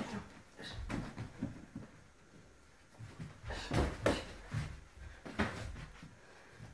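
Boxing gloves thudding on gloves, arms and headgear during close sparring, mixed with shuffling footsteps. The thuds come in flurries, the loudest cluster about halfway through, with one more sharp hit later on.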